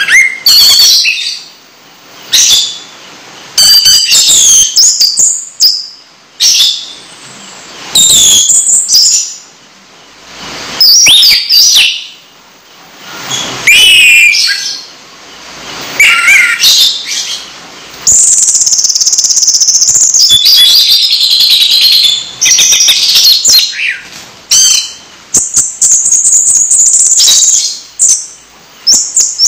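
Caged songbird singing loudly in repeated bursts of chirps and sliding high whistles, with short pauses between phrases and one long high trill held for a few seconds past the middle.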